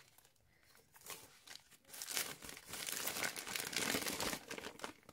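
Plastic packaging and bubble wrap crinkling as they are handled by hand. It is mostly quiet for about the first two seconds, then turns into continuous crinkling.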